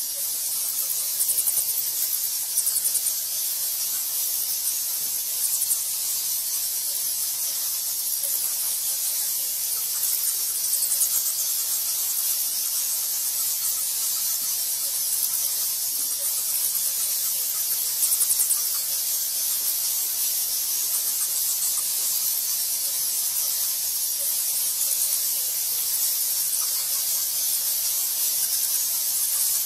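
A bat colony chittering and squeaking en masse, heard as a steady high hiss, with a few brief louder flurries of rapid clicks, about a second in, near three seconds and around eighteen seconds.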